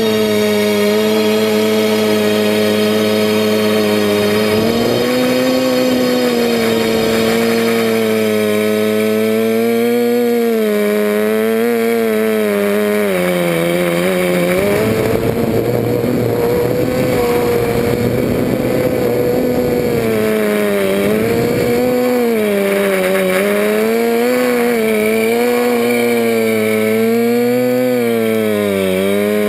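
FPV quadcopter's electric motors and propellers buzzing loudly, heard from the onboard camera, the pitch rising and falling smoothly as the throttle changes.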